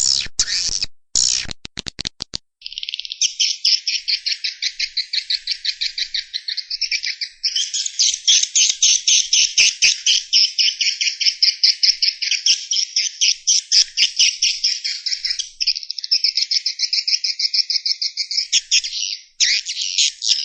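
A few sharp clicks in the first two seconds, then swiftlets twittering: a dense, continuous stream of rapid high-pitched chirps.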